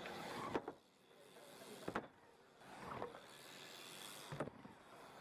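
BMX bike riding a wooden bowl: the tyres hiss across the plywood ramp surface in swells that rise and fade. Three sharp knocks, about half a second, two seconds and four and a half seconds in, come from the wheels striking the ramp.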